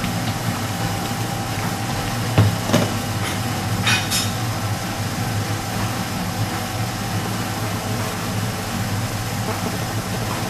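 Steady mechanical hum of kitchen ventilation, with a few light knocks about two and a half and four seconds in.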